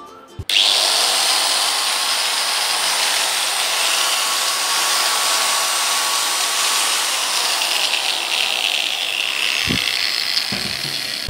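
Angle grinder fitted with a homemade folded-paper cutting disc, switched on about half a second in and running free at full speed with a steady high whine. It eases a little near the end.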